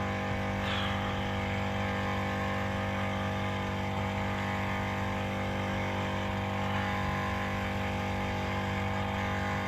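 Portable tyre-inflator air compressor running steadily with an even, unchanging hum, inflating the tyre being plugged.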